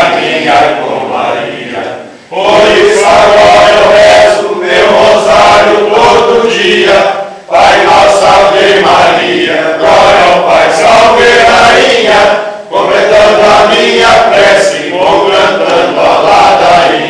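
A group of men singing a Catholic litany (ladainha) together in long chanted phrases, with short breaks for breath about every five seconds.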